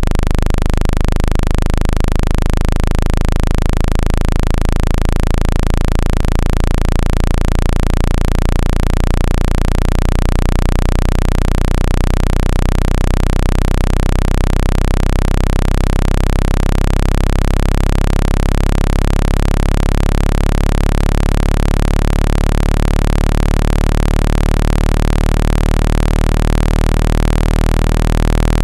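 Synthetic speaker-cleaning signal, played to shake sand and dust out of a speaker: a loud, continuous hiss over a dense cluster of steady low tones, pulsing quickly and evenly. It starts suddenly.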